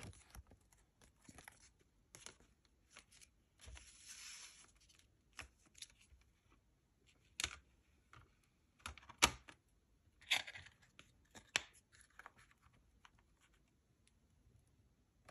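A plastic CD jewel case and its paper booklet being handled: the paper slides and rustles, with a string of sharp plastic clicks and clacks as the case is opened, fitted and closed.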